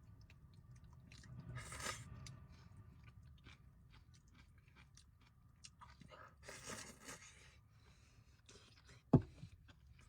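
A person eating noodles: quiet chewing, with two short hissy bursts and one sharp knock about nine seconds in, which is the loudest sound.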